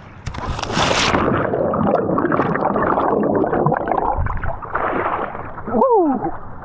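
Water sloshing and gurgling around an inflatable paddleboard out on the water, with a short call that falls steeply in pitch near the end.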